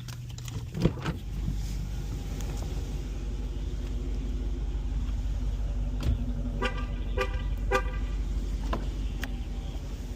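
Steady low rumble of a car on the move, with a knock about a second in. Three short pitched beeps about half a second apart come around seven seconds in.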